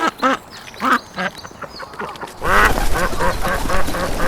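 Ducks quacking: a few separate quacks, then about halfway through a louder run of rapid quacks, several a second, over a low rumble.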